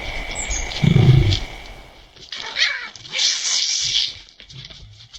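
A cat crying out with a falling yowl, followed by a loud hissy burst, after a dull thump about a second in. A thin steady high tone runs underneath.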